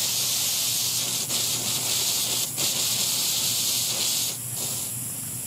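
Pop-up sprinkler head with an MP1000 rotator nozzle spraying with the zone just switched on: a steady, high hiss of water, which drops off a little before the end.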